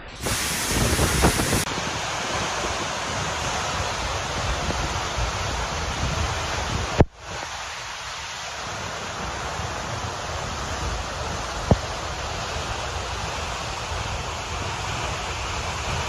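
Seljalandsfoss waterfall crashing down close by: a steady, loud rushing of falling water and spray. The sound cuts out briefly about seven seconds in, and there is a sharp click near twelve seconds.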